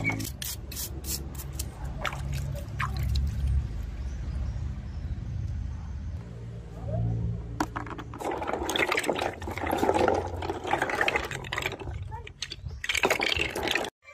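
Water pouring and splashing, with scattered sharp clicks and knocks and a louder stretch of water in the second half.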